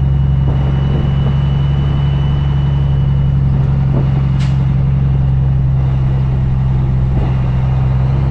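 Cummins ISX diesel of a 2008 Kenworth W900L heard from inside the cab, pulling steadily at an even pitch as the loaded truck climbs a snowy hill. A few faint knocks from the cab come through over the drone.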